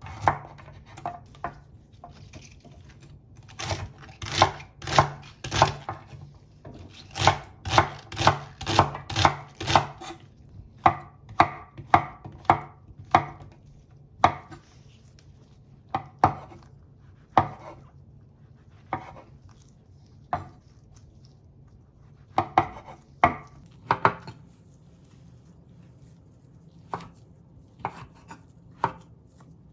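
Knife chopping vegetables on a cutting board: runs of sharp strokes about two a second, then single strokes a second or two apart, with a brief flurry about three-quarters of the way through.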